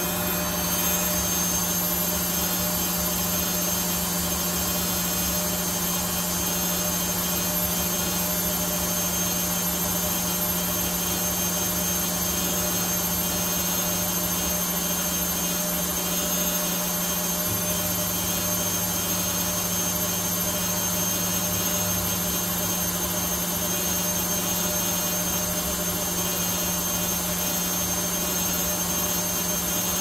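Hisense front-loading washing machine spinning a puffer jacket on its spin cycle: a steady motor hum with a high-pitched whine over a constant whir.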